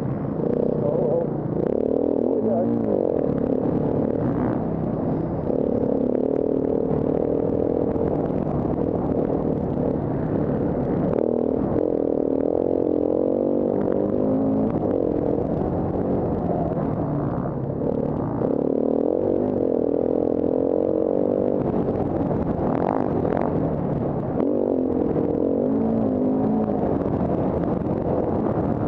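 KTM 350 Six Days' single-cylinder four-stroke engine being ridden hard, its revs rising and falling as the rider works the throttle and gears, with several short dips where the throttle is rolled off or a gear is changed.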